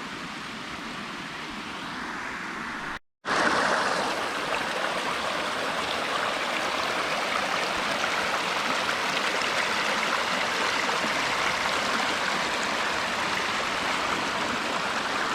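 Water rushing steadily down a waterfall and its stream. It cuts out for a moment about three seconds in and comes back louder.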